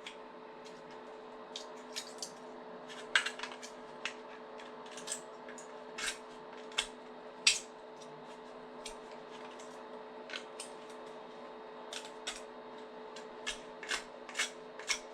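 Sharp knife carving and scraping leftover support material off a 3D-printed plastic part: irregular short scrapes and clicks, a dozen or more, over a faint steady hum.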